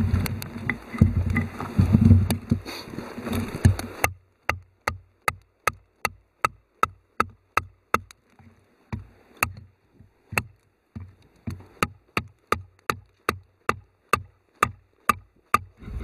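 Outdoor noise with several heavy knocks, then an abrupt cut about four seconds in to a steady run of sharp, evenly spaced ticks, about three a second, with no background at all.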